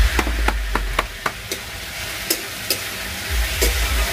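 Metal spatula stirring and clinking against a metal kadhai in which potato bhujia is frying, with a steady sizzle underneath. A quick run of about six clinks comes in the first second or so, then single clinks every half second to second.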